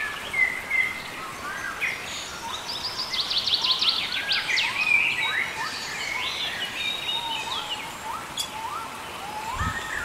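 A chorus of small birds chirping and singing together: many short rising chirps overlapping, with a fast trill a few seconds in.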